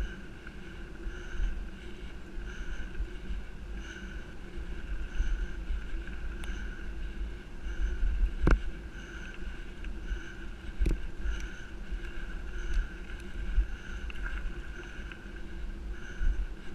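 Wind rumble on the microphone and bicycle tyres rolling over a gravel forest track as the bike is pulled along by a harnessed dog. A faint high tone pulses about every second and a half, and two sharp clicks come about eight and eleven seconds in.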